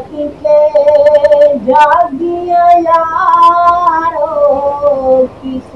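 A single high voice singing a naat in long, drawn-out held notes that step up and slide down in pitch, with no words made out.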